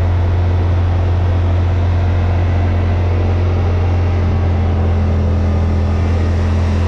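Yamaha Wolverine RMAX side-by-side running steadily down a gravel road, heard from inside the cab: a steady low engine drone with tyre and gravel noise over it. A slightly higher steady tone joins about halfway through.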